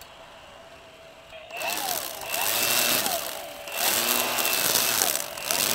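Milwaukee M18 battery string trimmer spinning up in three bursts from about a second and a half in, its line cutting grass, with a high whine and the motor's pitch rising and falling as the trigger is pressed and eased.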